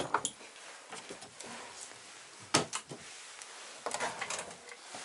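A small cabinet door shutting with a sharp knock, followed by a few scattered knocks and rustling from handling things.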